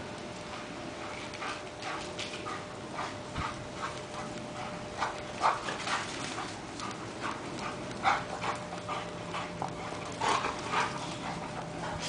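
A German shepherd and a white pit bull playing in snow: short, irregular scuffling and breathing noises that come thicker from about five seconds in.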